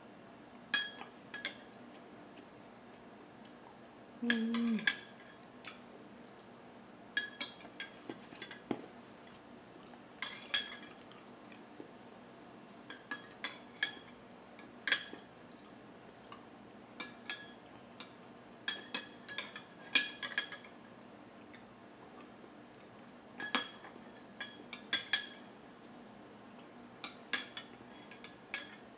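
A metal spoon clinking and scraping against a glass bowl of rice porridge: scattered clusters of light, ringing taps as the spoon dips and scoops.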